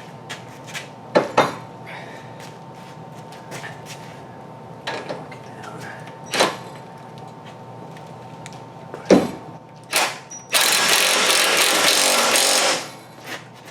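Scattered metal clinks and knocks of tools and suspension parts, then about two seconds of a ratchet wrench clicking rapidly near the end as the castle nut is run down onto the new lower ball joint stud.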